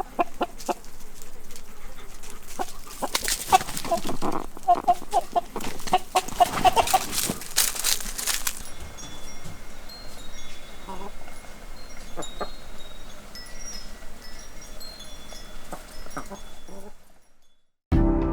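Chickens clucking in a run of short repeated calls amid rustling, followed by scattered thin, high ringing tones.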